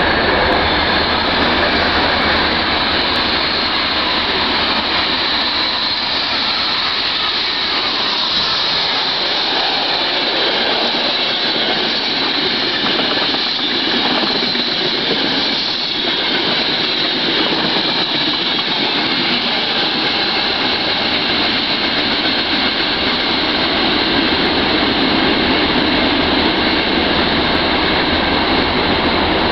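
Intercity passenger train passing through the station without stopping, its coaches rolling by on the near track: a steady loud rush of noise, with a run of wheel knocks around the middle.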